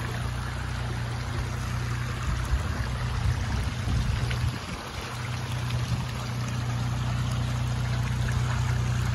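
Toyota Land Cruiser engine running steadily at low revs as it crawls over rocks, dipping briefly about halfway through. A steady hiss of shallow water running over stones lies under it.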